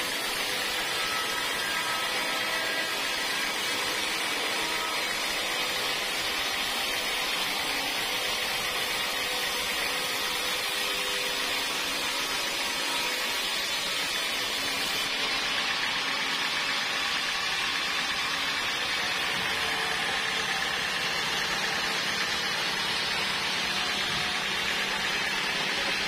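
Band sawmill cutting lengthwise through a bayur (wadang) log: a steady hiss of the blade in the wood over the running machine, holding an even level throughout.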